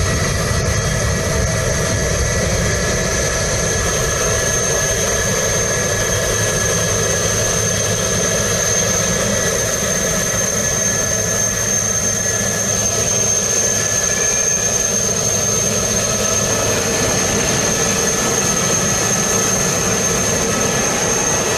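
Jet airliner engines running steadily: an even rushing noise with a constant high whine over it.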